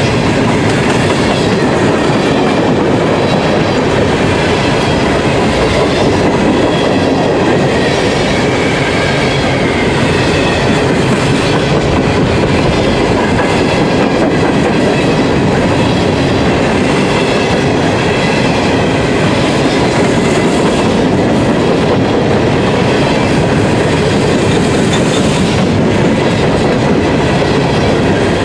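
Empty steel coal hopper cars of a freight train rolling past at close range: a loud, steady rumble of wheels on rail, with faint steady high ringing tones above it.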